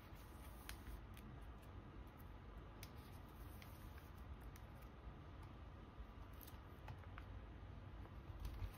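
Faint plastic rustling and small clicks of sleeved photocards being slid into the clear pockets of a binder page, over a low steady rumble.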